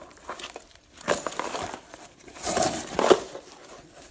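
A black nylon tactical rucksack being handled and turned over by hand: fabric rustling, with small clicks and clinks from its plastic buckles and strap hardware. It is loudest in a burst of rustling about two and a half to three seconds in.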